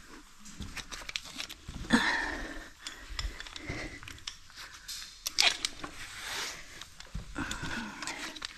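Footsteps crunching and scraping over loose rock and dirt on a cave floor. The steps and shuffles come irregularly, with a louder crunch about two seconds in and again about five and a half seconds in.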